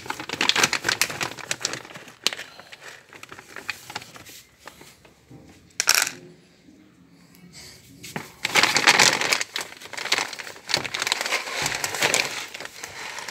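Plastic packaging crinkling and rustling as it is handled, in two long bouts with a quieter stretch between and one sharp crackle about six seconds in.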